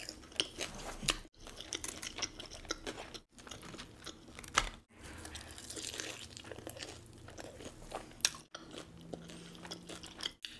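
Close-miked crunching and chewing of fried chicken wings: many sharp, crisp crunches as the breaded skin is bitten and chewed. The audio is broken by several brief, abrupt silent gaps.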